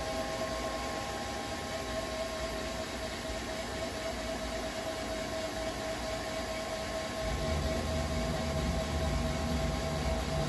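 Haas SL-30T CNC lathe running, a steady mechanical whine made of several held tones over a hiss. About seven seconds in, a lower rumble joins and the sound gets a little louder.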